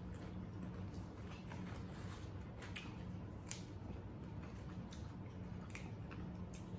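Someone chewing crunchy corn tostadas with Rotel dip: scattered soft crunches and mouth clicks over a steady low hum.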